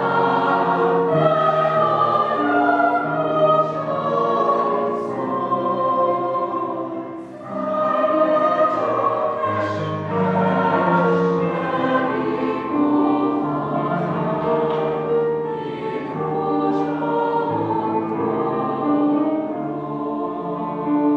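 Mixed choir of women's and men's voices singing held chords in several parts, with a short break between phrases about seven seconds in.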